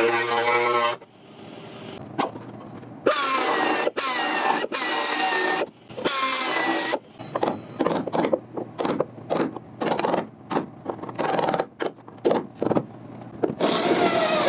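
A power tool cutting into a car's rusted sheet-metal body panel: a few runs of a second or two each, its pitch dropping as it works, then many short stop-start bursts. Background music fades out about a second in and comes back near the end.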